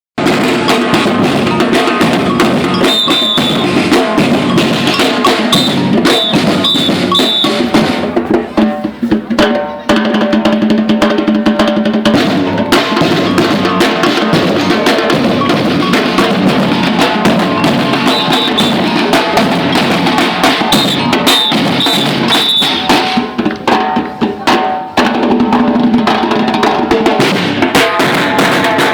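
Batucada samba percussion ensemble playing a dense, driving rhythm of bass drums, snare drums and cowbell. The playing thins out briefly twice, about a third of the way in and again later on, before the full ensemble comes back in.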